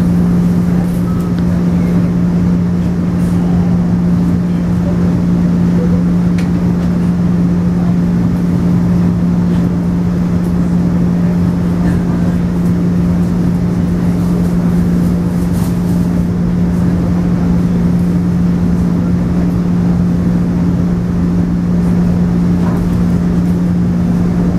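Running sound inside a JR 113-series electric train with MT54 traction motors as it pulls away and gets under way: a steady low hum over the rumble of wheels on the track, with a few faint clicks.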